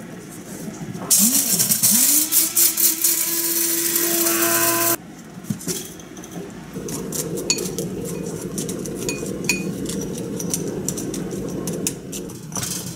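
A small electric blender or grinder motor whirs up to speed about a second in, grinds loudly for about four seconds and cuts off suddenly. Then a quieter steady hiss follows, with scattered light clicks and clinks.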